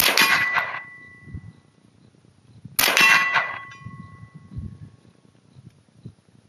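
Two .22 rimfire rifle shots about three seconds apart, the first right at the start. Each sharp crack is followed by a clear metallic ring that fades over a second and a half or so.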